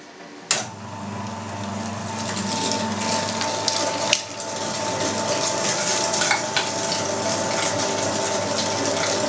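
Electric meat grinder switching on with a click, then its motor running steadily, grinding beef through a fine 2 mm plate; the sound builds up over the first few seconds as the meat loads the auger. One sharp knock about four seconds in.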